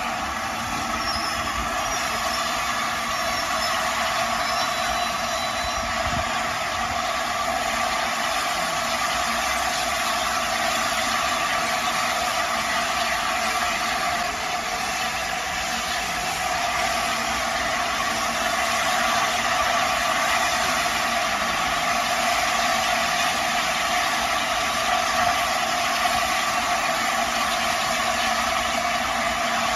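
LNER A4 Pacific steam locomotive 60007 standing at the platform, its steam hissing steadily without a break.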